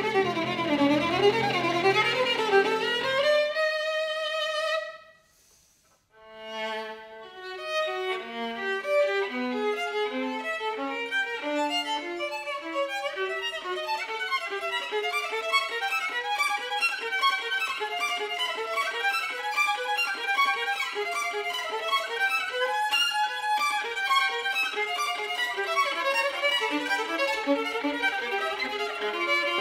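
Solo violin bowed with piano accompaniment; the piano drops out about three seconds in. After a brief near-silent pause, the violin plays on alone in fast, rising and falling runs.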